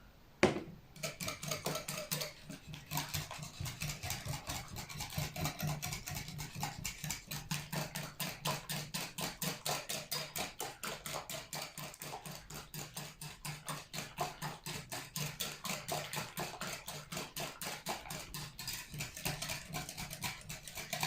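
A hand whisk beating a liquid cake batter of eggs, sugar, oil and milk in a bowl, with even strokes about four a second. There is a single sharp knock about half a second in.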